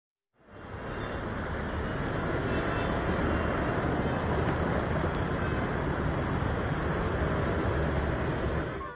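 Outdoor sound of a flooded city street: a steady low rushing noise of traffic and water. It starts about half a second in and cuts off suddenly near the end.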